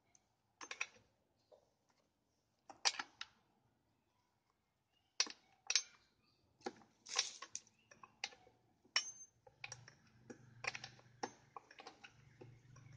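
Irregular metallic clicks and clinks of a chainsaw's saw chain and guide bar being handled while the chain is changed, some with a brief high ring, coming thicker in the second half. A faint low hum sets in about ten seconds in.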